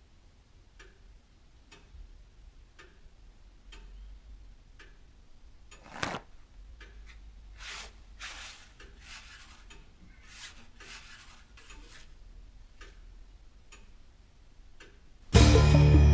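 A clock ticking about once a second, with the rub and rustle of a paper napkin wiping at a shirt in the middle and one louder rustle about six seconds in. Guitar music starts suddenly near the end.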